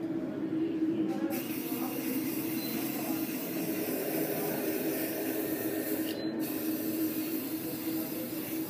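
Aerosol hair spray can hissing as it is sprayed over a charcoal drawing as a fixative. The hiss starts about a second in, stops briefly near the middle, then starts again.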